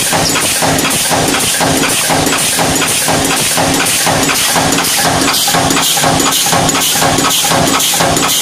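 Punch press with an automatic sheet feeder running continuously, stamping in a fast, even rhythm of knocks over a steady motor hum.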